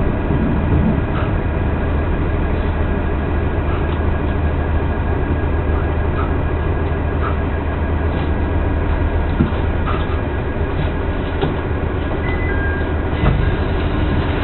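Passenger train heard from inside the carriage as it rolls slowly into the station: a steady low running hum with faint, scattered ticks.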